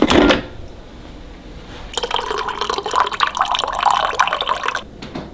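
A short clunk as a thermal coffee carafe is pulled from the coffee maker, then black coffee pouring from the carafe into a ceramic mug for about three seconds, starting about two seconds in and stopping suddenly.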